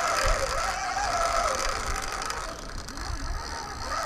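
Fishing reel ticking rapidly as line moves under the pull of a hooked salmon of about a metre, its pitch wavering up and down with the line's speed.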